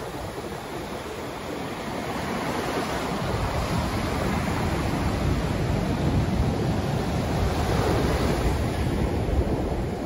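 Atlantic surf breaking and washing up the beach, a continuous wash of foaming water that swells louder about three seconds in as a wave comes ashore.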